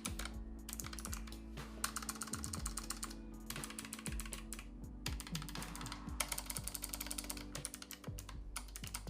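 Typing on a Keychron K1 Version 4 low-profile mechanical keyboard: rapid runs of clicky keystrokes in bursts, with brief pauses between them.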